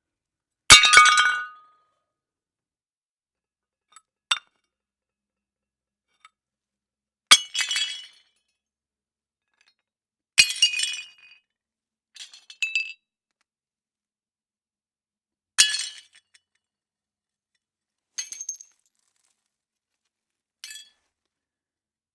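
Plates smashing one after another: about seven separate crashes a few seconds apart, each a sharp break followed by a brief tinkle of shards, with silence between. The first is the loudest, and the last two are fainter.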